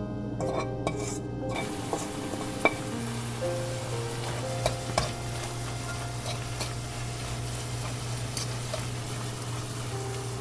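Food sizzling in a frying pan as it is stirred, the sizzle coming in about a second and a half in, with a few sharp clicks of a utensil against the pan. Soft background music plays throughout.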